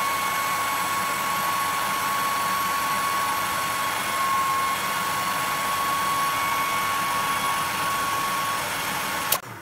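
Hair dryer running flat out as an overload of about 10.5 A through a Schneider miniature circuit breaker: a steady rush of air with a thin whine. Near the end a sharp click as the breaker trips on the overload, and the dryer cuts out and winds down.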